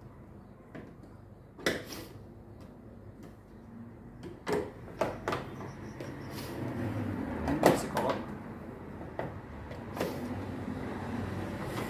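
Scattered knocks and clicks, about a dozen, as the retaining ring of a Samsung front-loading washer's door gasket is worked into place with a tool against the machine's cabinet; the loudest knocks come in a cluster past the middle.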